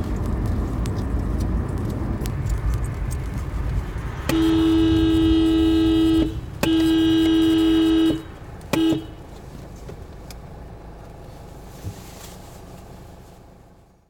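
Car horn honking three times: a long blast of about two seconds, a second of about a second and a half, and a short toot, set off by the brake pedal through the Autohonk device as the driver brakes. Before the horn, steady road and engine rumble inside the car's cabin, which fades out near the end.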